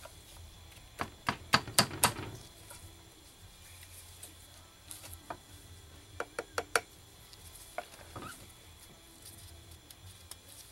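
Sharp metal clicks and taps from hand tools working the speedometer drive gear off an automatic transmission's output shaft: a quick cluster of about five a second or two in, four quick clicks in the middle, and a few single ones after.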